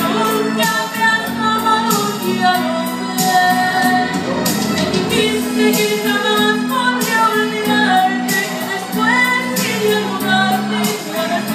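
A singer performing a song over instrumental accompaniment.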